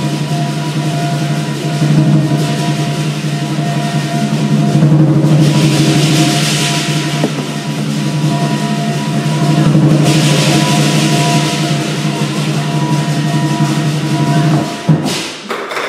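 Chinese lion dance drum with cymbals and gong playing a loud, continuous accompaniment, the cymbals swelling several times. Near the end the playing breaks into a few separate strikes.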